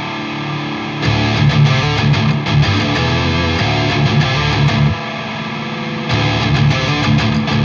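Drumless progressive metal backing track at 95 BPM: distorted electric guitars play riffs with no drums. The heavy low end drops out briefly at the start and again about five seconds in, then comes back.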